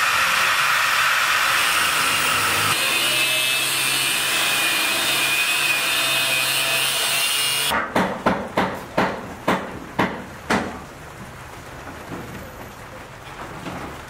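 Angle grinder cutting through steel rebar, running steadily for about eight seconds. Then a run of about eight sharp knocks, two or three a second, before it goes quieter.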